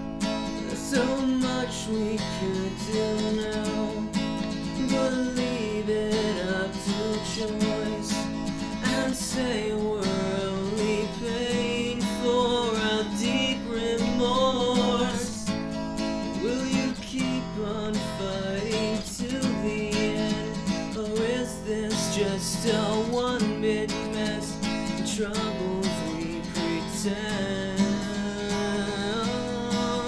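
Music: strummed acoustic guitar with a melody line that bends up and down in pitch over it.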